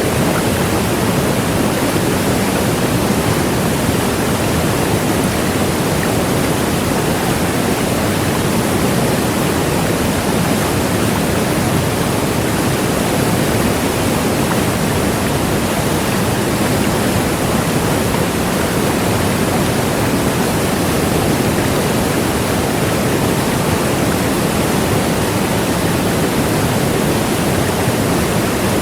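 Large waterfall: a loud, steady rush of falling water, unchanging throughout.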